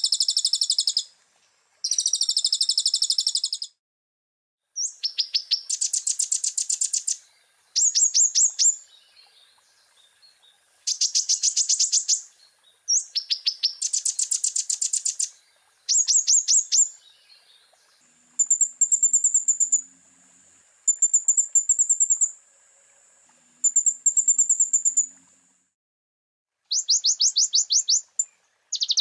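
Kolibri ninja ('konin') sunbird song: bursts of very fast, high chattering trills, each a second or two long, repeated every couple of seconds. Partway through it switches to a run of thin, high, steady notes before the trills return.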